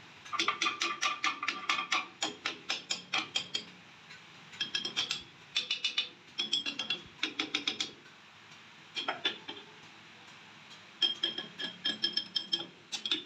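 Rapid metal-on-metal strikes in several bursts, many a second, with the steel ringing, as a steel rod taps and levers against a flour mill's welded steel cutter blades while they are being adjusted.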